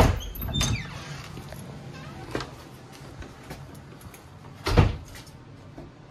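A few sharp knocks and clatters: two at the start, a lighter one midway and the loudest just before the end, over a faint low steady hum.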